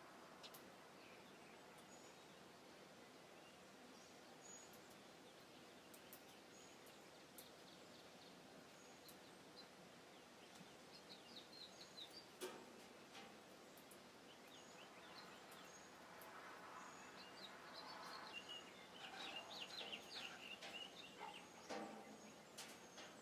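Faint birdsong: small birds chirping in short high twitters, in bursts about halfway through and again near the end, with thin whistles scattered throughout and a couple of faint knocks.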